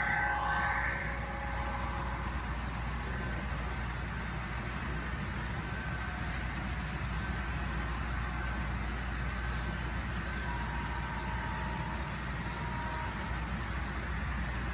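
HO-scale model freight cars rolling along the layout track, a steady low rumble and hiss of small wheels on rail. A louder sound with a few held tones fades away in the first second or so.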